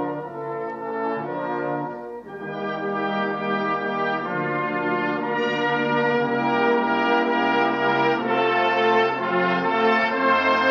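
Brass band music: brass instruments playing held chords that change every second or two, with a brief break about two seconds in.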